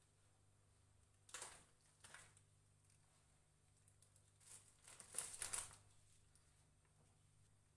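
Faint rustling and crinkling of a plastic bread packet and soft pav buns being torn apart, in short bouts about a second in and again, louder, around five seconds. Between them, near silence with a low steady hum.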